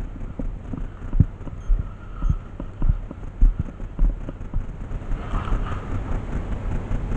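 Dull low thumps about twice a second, in a walking rhythm, over a low rumble.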